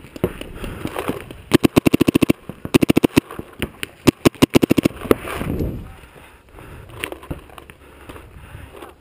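Paintball markers firing rapid strings of shots, about a dozen sharp pops a second, in three bursts starting about a second and a half in.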